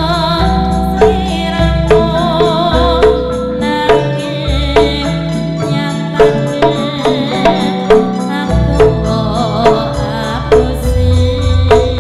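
Javanese gamelan playing a slow tayub gending: bronze instruments struck on a steady beat about once a second, with deep low tones beneath. A woman's voice sings wavering, ornamented lines over it in several phrases.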